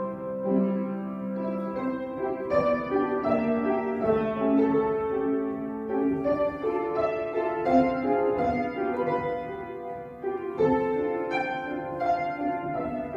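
Piano music accompanying a ballet barre développé exercise: a classical piece of sustained chords and melody notes.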